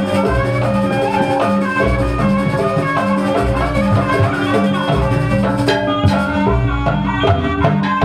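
Jaranan gamelan music: drums and struck metal instruments play a steady rhythmic pattern over a long held tone. Sharper, brighter strikes join about two-thirds of the way in.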